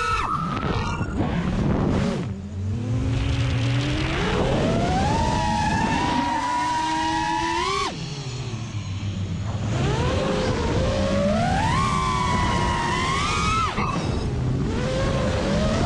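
Brushless motors and propellers of a 6S-powered FPV quadcopter, whining up in pitch as the throttle is pushed, dropping off sharply about eight seconds in and again near fourteen, then climbing once more. Air rushes past underneath.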